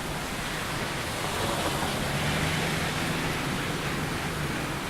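Steady downpour of heavy rain with running floodwater. A faint low hum joins in about two seconds in and fades near the end.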